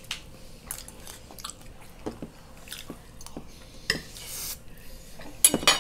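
Spoons and forks clinking and scraping on ceramic dinner plates as people eat, with scattered light clicks and a few louder clinks near the end.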